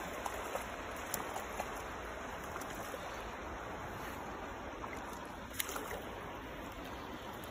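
Steady rush of flowing creek water, with a few faint short ticks.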